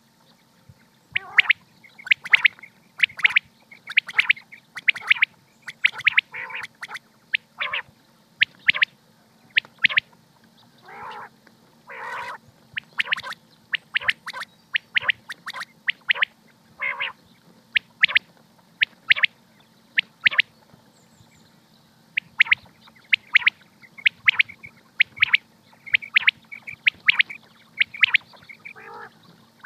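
Common quail calling: short, sharp, high notes repeated in quick clusters of two or three, with a few lower, harsher notes among them, over a steady low hum.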